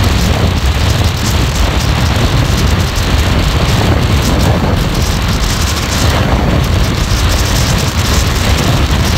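Wind buffeting the microphone: a loud, steady rushing noise with a heavy low rumble.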